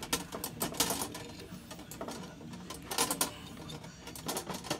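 Metal clicking from a hand-turned double-flaring tool being tightened down on nickel-copper tubing, in about four short runs of clicks as the handle is worked, pressing the tube end into a bulbous first-stage flare.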